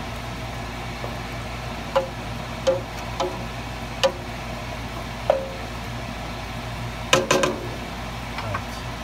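Wooden spoon stirring a thick bolognese in a stainless-steel pot, knocking against the pot's sides every second or so with short ringing clinks, and a louder clatter of several knocks about seven seconds in, over a steady low hum.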